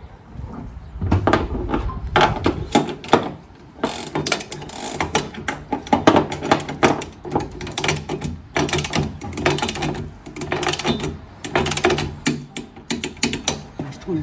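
Ratcheting torque wrench clicking in quick runs as it is swung back and forth, tightening a bolt on a spare-tire carrier mount to a set torque of 25 foot-pounds.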